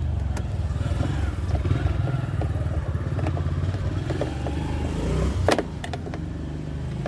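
Steady low background rumble with light metallic clicks and clatter of a screw being driven into a washing machine's plastic cover with a 5.5 mm nut driver, and a sharper knock about five and a half seconds in.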